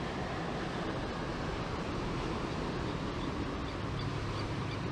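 Steady ocean surf and wind noise on the microphone, with a few faint high chirps about three to four seconds in.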